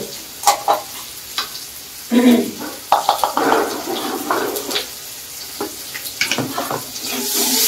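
A spoon stirring and scraping in a bowl with scattered light clinks while oil sizzles in a wok over a gas flame. The sizzle grows louder near the end.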